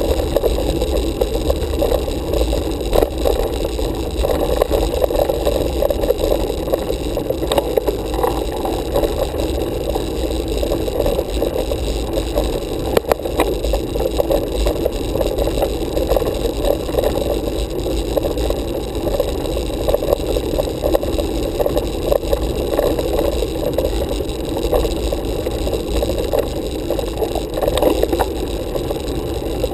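Road bike riding noise picked up by a handlebar-mounted camera: a steady rumble and rush of tyres, road vibration and wind on the microphone, with a few small knocks from bumps in the road.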